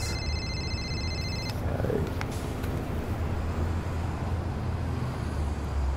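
An electronic phone ringtone sounds as a steady high tone and stops about a second and a half in, followed by a steady low hum of street traffic.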